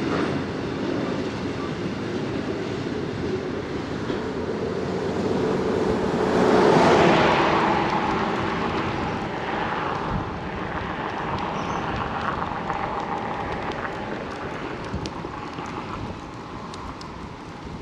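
Narrow-gauge freight train of acid tank wagons rolling past, wheels and wagons on the rails. The rumble swells to its loudest about seven seconds in, then eases off.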